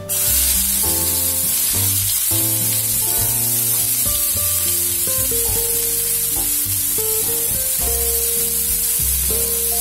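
Finely chopped onions sizzling in hot oil in a frying pan: the sizzle starts suddenly as they are tipped in, then holds steady.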